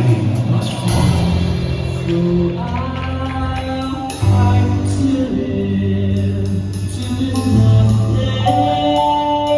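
Music: a song with sung, held notes over instrumental accompaniment and a steady beat.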